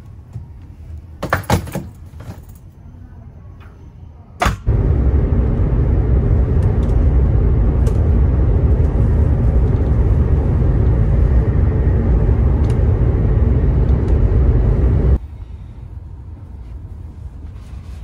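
A few sharp clacks from the overhead luggage bin as a bag goes in and the lid is handled, then a loud, even low rumble that starts suddenly about four and a half seconds in and cuts off abruptly some ten seconds later.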